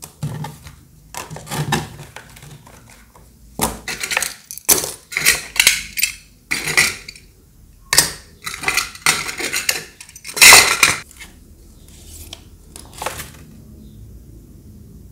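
Tin button badges clicking and clinking against each other as they are picked up and shuffled among paper cards in a box: irregular clinks, the loudest about ten seconds in, stopping near the end.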